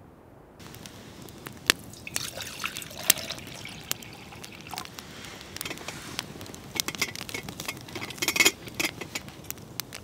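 Water poured from a stainless steel vacuum flask into a metal camp cup, over the crackling of a wood campfire. Near the end, a few sharper knocks as the cup is set onto the burning logs.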